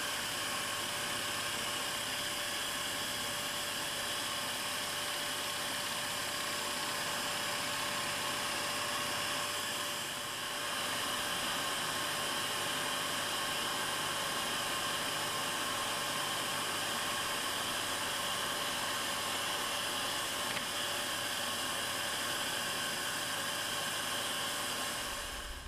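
Electric scroll saw running steadily, its reciprocating blade cutting intricate fretwork out of thin wooden board: a continuous mechanical whine with the buzz of the blade in the wood, briefly dipping about ten seconds in.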